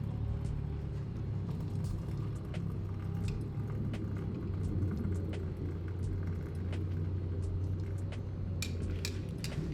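Metal spoon clinking against a ceramic mug while stirring hot chocolate, with a cluster of louder clinks near the end, over a steady low hum.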